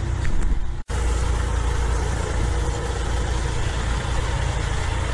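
Steady low engine rumble with a hiss over it, broken by an abrupt cut just under a second in.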